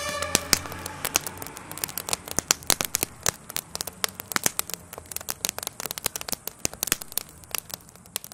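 Burning wooden garden shed crackling and popping, with sharp irregular pops several times a second. A siren fades out right at the start.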